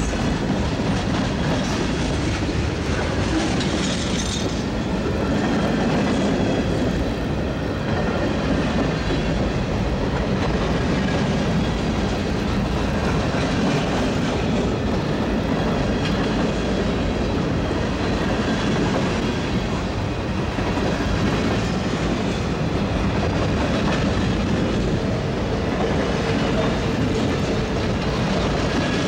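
Freight cars of a long mixed freight train rolling past close by: a steady rumble and clatter of steel wheels on the rails.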